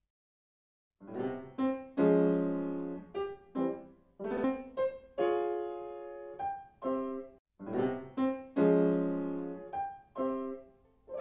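Piano music: after about a second of silence, a short phrase of struck notes and chords, which breaks off briefly about seven and a half seconds in and then starts again.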